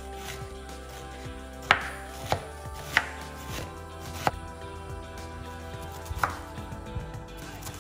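Large knife shredding cabbage on a wooden cutting board: irregular sharp knocks of the blade striking the board, about five loud ones among lighter cuts.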